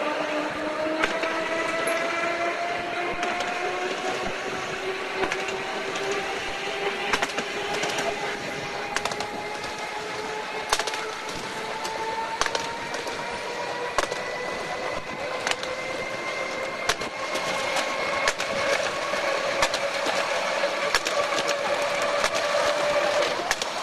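Narrow-gauge electric tram running along its track, its motors whining in a slowly rising pitch as it gathers speed. The wheels click over the rail joints all the way through.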